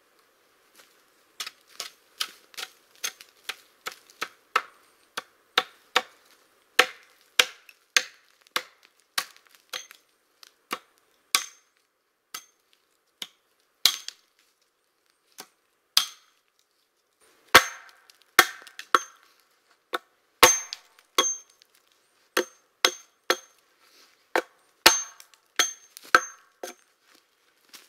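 Hatchet chopping into the base of a thin standing tree: a long series of sharp, dry wooden chops, roughly one to two a second, with only a few scattered strokes for several seconds in the middle.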